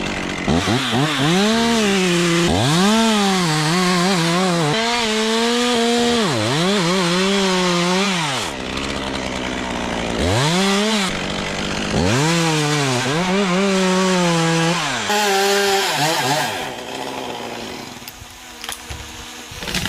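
Chainsaw cutting into wood, its engine pitch rising and dipping over and over as it revs and bogs down in the cut. It eases off briefly about halfway, revs again, then drops away near the end.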